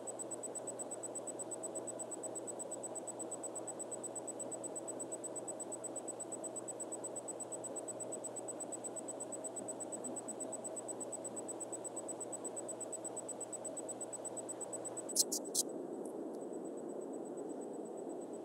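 Steady electrical hiss and hum of a quiet room recording, broken about fifteen seconds in by two or three quick, sharp clicks close together.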